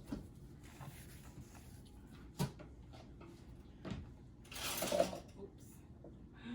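Kitchen handling sounds: a few separate sharp knocks from containers and utensils being set down, and a brief scraping rustle about halfway through, while dry ingredients are measured out.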